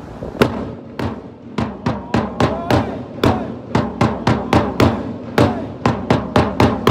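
Drum beaten hard with sticks in a cheering-squad rhythm: about nineteen sharp strokes in quick uneven groups, each ringing briefly.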